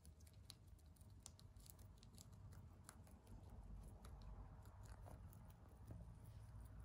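Rabbit chewing a leafy green: quick, faint, crisp clicks and crunches, several a second, over a low background rumble.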